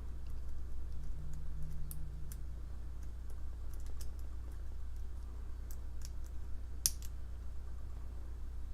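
Lock pick and tension wrench working the pins of a challenge lock: faint, irregular metallic clicks, with one sharper click about seven seconds in, over a steady low hum.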